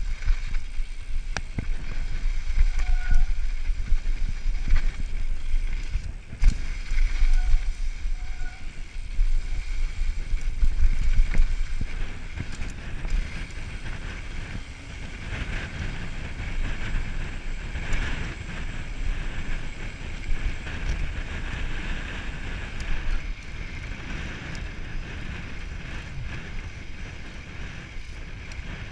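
Mountain bike rolling over a dirt singletrack: wind buffeting the camera microphone with a low rumble, over tyre noise on dirt and scattered sharp knocks and rattles from the bike on bumps. Louder for the first dozen seconds, then steadier and quieter.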